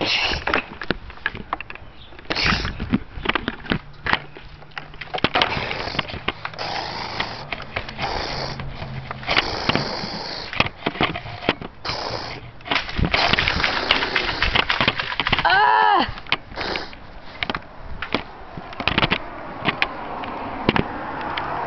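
Irregular knocks, clicks and rustling from people moving about and handling gear, with a short wavering voice-like cry about sixteen seconds in.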